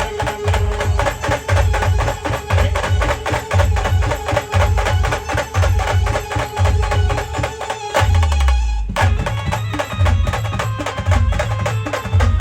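A band playing instrumental dance music: a steady, heavy drum beat under a held melody line. About two-thirds through, the music drops out for a moment on a low falling bass note, then the beat comes back in.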